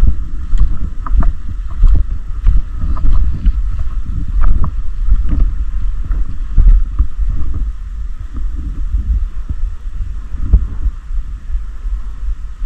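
Heavy low rumble of wind and rubbing on an action-camera microphone, broken by irregular knocks and clicks.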